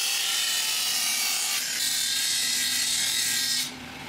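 Steel sword blade ground against a hard, coarse grinding wheel, a steady hissing grind with heavy metal removal at the first finishing stage. It drops away suddenly near the end.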